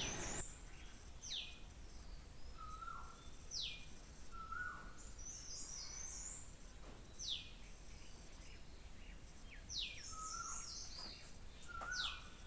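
Birds chirping: quick falling whistles that repeat every two to three seconds, with shorter lower chirps and high twittering between them, faint throughout.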